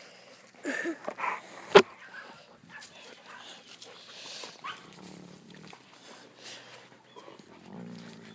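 A dog's brief whining calls about a second in, followed by one sharp knock, the loudest sound. Faint rustling and handling noise follow.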